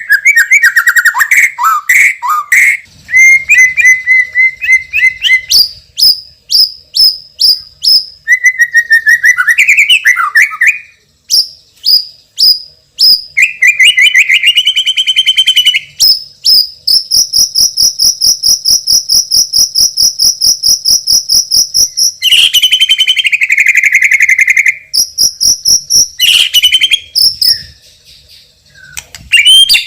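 White-rumped shama (murai batu) singing loudly: varied whistled and warbled phrases mixed with fast, clicking rattles (ketrekan), including one long rapid rattle in the middle.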